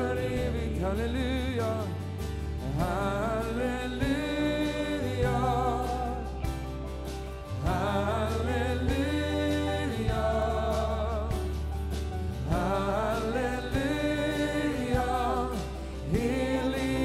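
Live worship music: a slow song with singing in long held phrases that rise and waver with vibrato, over sustained low bass notes that change every few seconds.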